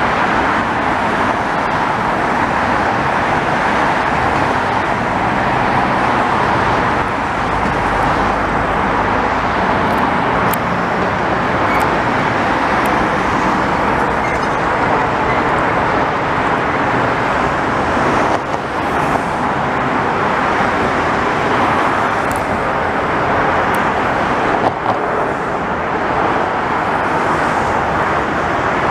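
Steady, dense highway traffic noise: a continuous wash of passing vehicles' tyres and engines.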